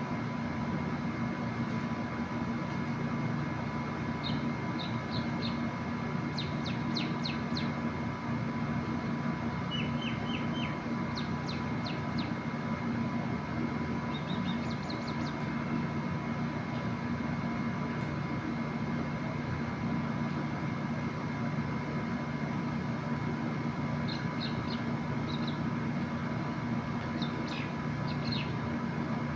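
A steady droning hum with several fixed tones runs throughout. Over it, small birds chirp in brief clusters of quick, high repeated notes at intervals.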